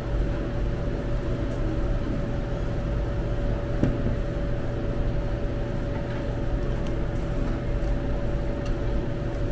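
Steady mechanical hum with a constant faint whine, with one light click about four seconds in.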